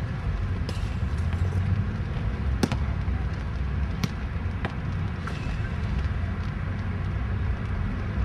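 Steady low outdoor rumble with two sharp knocks, about two and a half and four seconds in.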